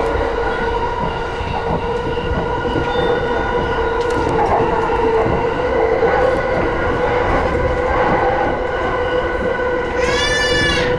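Yamanote Line commuter train running between stations, heard from inside the car: a steady rumble of wheels on rail under a constant motor hum. About ten seconds in, a brief high ringing tone with many overtones sounds for about a second.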